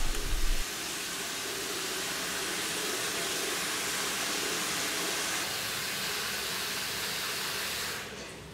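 Water running steadily from a lever tap into a ceramic sink basin, an even hiss that fades out near the end as the lever is worked.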